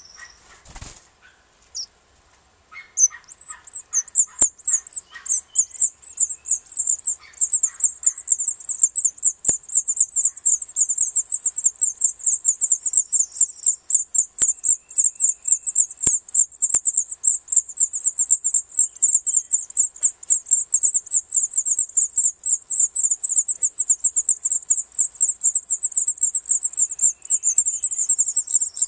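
House finch nestlings begging while the male feeds them: a continuous, very fast stream of thin, very high-pitched cheeps, starting about three seconds in. A dull knock sounds about a second in.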